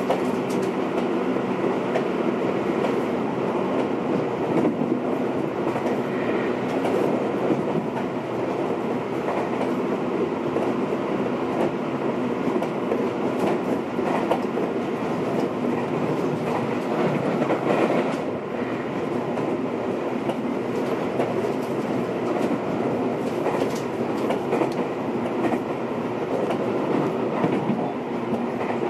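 Running noise inside a Seibu 20000 series electric train, heard from motor car MoHa 20804 at steady speed: a constant hum from the motor car's drive, rolling wheel noise, and clicks of the wheels over rail joints.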